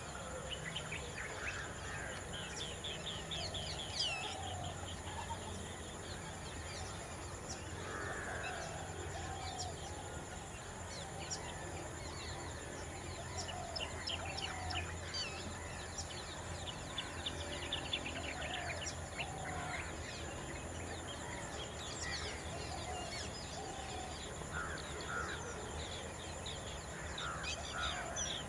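Many wild birds chirping and calling over a steady high insect drone, with a low hum underneath.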